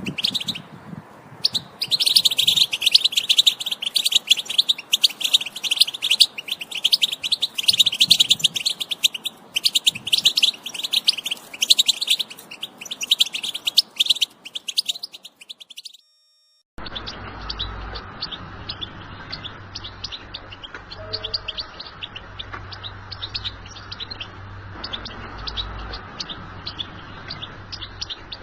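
European goldfinch song: a long run of rapid twittering trills and chirps. After about 16 s it cuts out briefly, and the song resumes quieter and duller, over a steady low hum.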